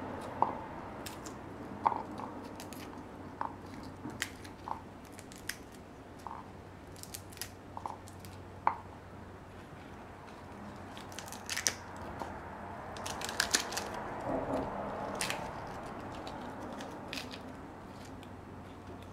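Kitchen food-prep sounds: irregular sharp clicks and taps of utensils, some ringing briefly, with crisp crunching in bunches past the middle, over a low steady hum.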